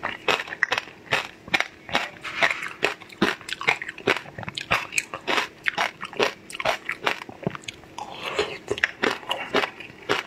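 Close-miked biting and chewing of a crunchy coated treat on a stick: a rapid, irregular run of sharp crunches and cracks.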